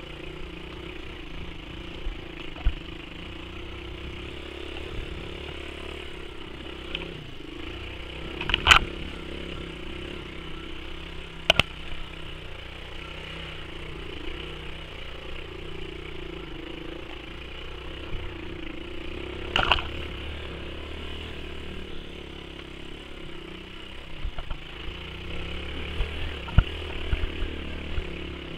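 A 1982 Honda XL125RC's single-cylinder four-stroke engine runs steadily at low revs while the bike picks its way over ruts and rocks. Sharp knocks and clatter from the bike jolting on the rough ground come a few times, with a run of them near the end.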